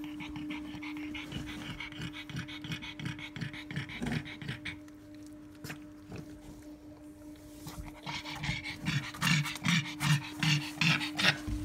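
Pug bitch panting in rhythmic breaths while whelping, about three breaths a second, louder in the last few seconds. A steady low hum runs underneath.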